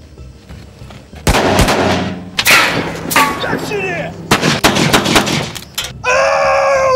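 Gunshots: single shots about one and two and a half seconds in, then a quick string of shots around four to five seconds in, each with a ringing tail. About six seconds in, a loud steady high-pitched tone starts and holds.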